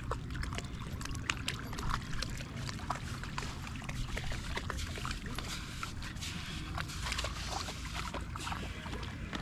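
Steady low rumble of wind on the microphone, with scattered small clicks and taps.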